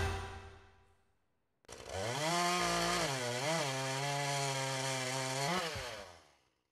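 Chainsaw running at high revs as if cutting wood: the engine revs up about two seconds in, holds a steady pitch with a brief dip and recovery, gives a short rev near the end, then fades out.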